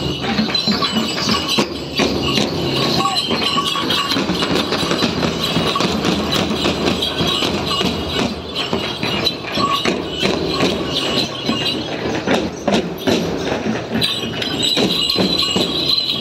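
Fast, continuous percussive clatter and jingling of traditional drumming and bells for a Gond Gussadi dance.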